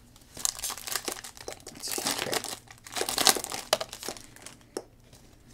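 Plastic wrapper of a trading-card pack being torn open and crinkled in gloved hands: a run of crackling that starts about half a second in and dies away near the end.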